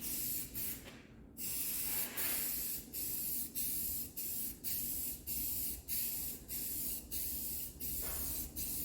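Aerosol spray-paint can hissing in short repeated bursts, roughly two a second, with a slightly longer break about a second in.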